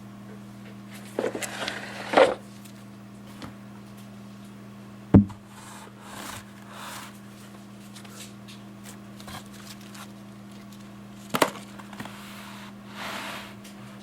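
Objects being handled: a few sharp knocks and stretches of rustling over a steady low hum.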